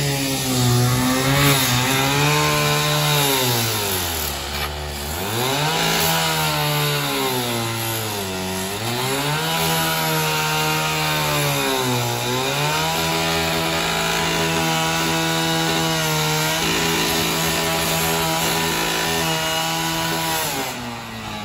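Firefighter's gas-powered two-stroke saw running at high revs against the rear liftgate of a burned SUV to force it open. The engine pitch sags and climbs back three times, then holds steady before the saw cuts off near the end.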